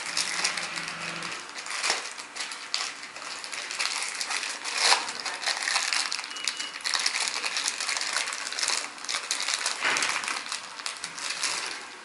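Hands working on small parts of a VW O2J gearbox shifter assembly: continuous rustling with many light clicks and taps of small plastic and metal pieces.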